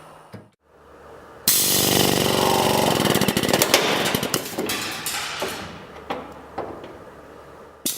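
Wielander+Schill Xpress 800 rivet gun running with a fast rattle that starts suddenly about a second and a half in and dies away over several seconds, followed by a few sharp clicks.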